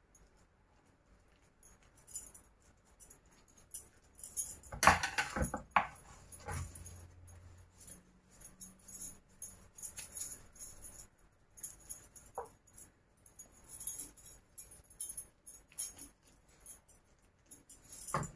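Metal bangles jingling on a wrist in short, scattered bursts as hands shape and place soft food, with a louder clatter about five seconds in.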